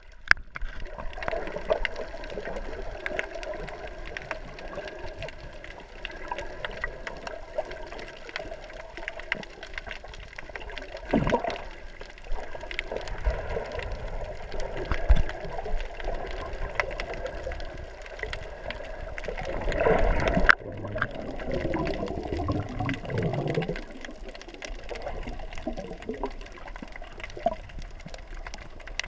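Muffled underwater water noise: gurgling and rushing water around a submerged camera, with many faint scattered clicks. It swells in louder surges about a third of the way in and again about two-thirds through.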